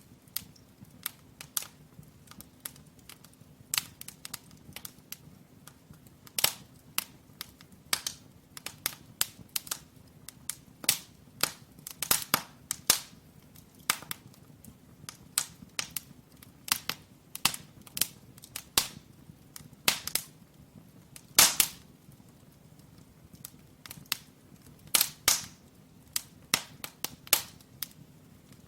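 Firewood burning in a brick fireplace: irregular sharp crackles and pops, several a second, with a few louder snaps, over a faint low steady rush.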